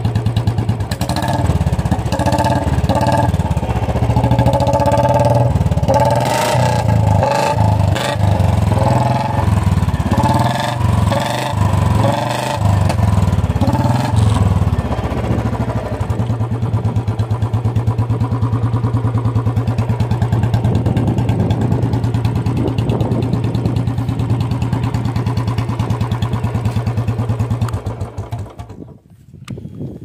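Royal Enfield Bullet 350 BS6's fuel-injected single-cylinder engine running loud through an aftermarket bend pipe, with its idle still set high. It is blipped up and down repeatedly for the first half, then idles steadily, and cuts out a little before the end.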